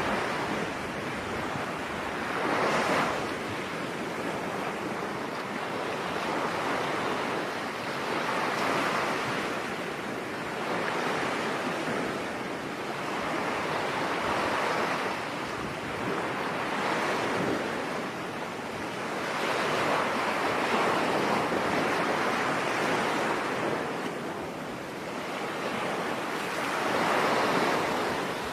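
Ocean waves breaking and washing on a beach, a continuous surf hiss that swells and recedes every few seconds.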